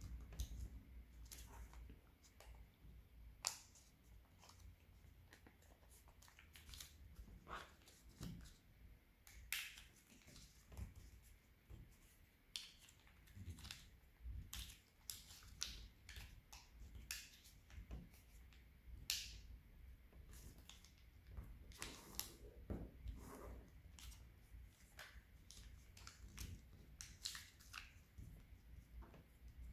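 A sheet of origami paper being folded and creased by hand: faint, irregular crackles and rustles of the paper, with a few sharper snaps as creases are pressed.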